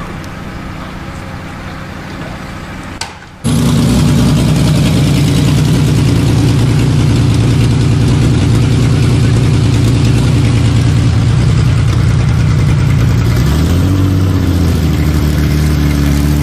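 Koenigsegg Regera's twin-turbo V8 running loud and steady as the car rolls along at low speed, cutting in abruptly about three seconds in after a quieter stretch of background noise. Near the end the engine note rises in pitch and holds there.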